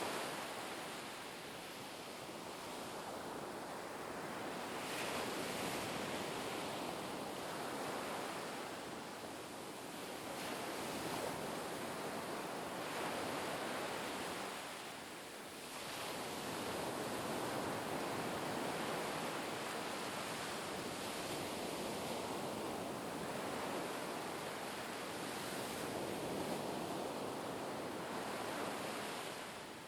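Sea waves washing in a continuous surf, swelling and easing every several seconds.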